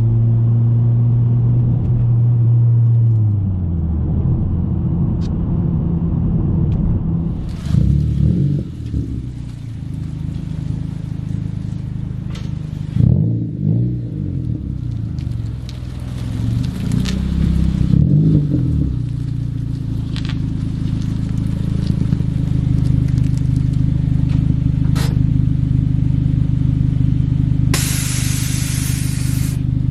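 2014 Honda Civic Si's 2.4-litre four-cylinder engine running through an Invidia N1 exhaust while driving. The revs hold steady, drop about three seconds in, rise and fall several times in the middle, then settle into steady cruising. A brief loud hiss comes near the end.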